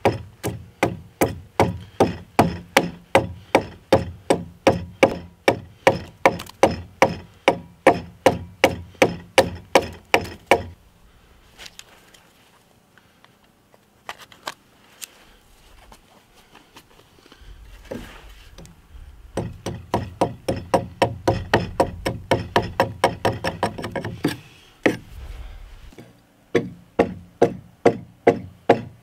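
Hand-chiseling a log notch: the head of a short-gripped axe strikes the chisel in quick, even knocks, about three a second, for roughly ten seconds. A quiet pause with a few faint knocks follows, then two more runs of rapid strikes, one in the middle stretch and a shorter one near the end.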